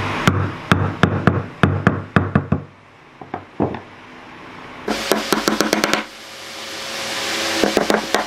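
A hammer knocking on peeled wooden logs: spaced knocks at first, then after a quieter stretch two runs of quick, light taps driving a nail into a log, with a ringing tone under the taps.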